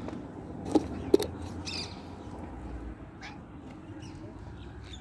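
Two sharp clicks close together about a second in, then a few short, faint bird chirps.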